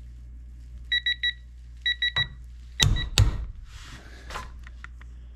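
Neiko digital torque adapter beeping in two quick groups of three high beeps as the applied torque nears its 100 ft-lb preset, then a half-inch click-type torque wrench breaking with two sharp, loud clicks about three seconds in: the wrench reaching its set torque.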